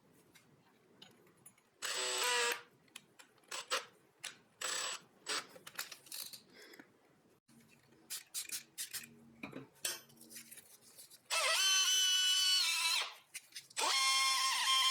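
Short bursts and clicks of a hand power tool, drill-like, working in brief runs. About eleven seconds in, music with held, stepping notes comes in.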